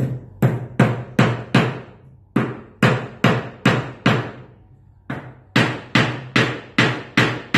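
Claw hammer driving a nail into a block of timber resting on a table: three runs of about five quick, sharp blows each, with short pauses between runs.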